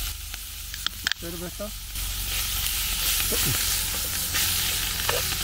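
Meat sizzling on a grill: a steady frying hiss that grows a little louder about two seconds in. A couple of sharp clicks come about a second in.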